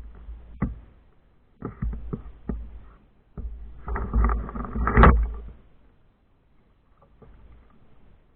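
Hollow knocks, scrapes and thumps of a kayak and its gear being handled: a few sharp knocks, then a busier stretch of clatter ending in a heavy thump about five seconds in.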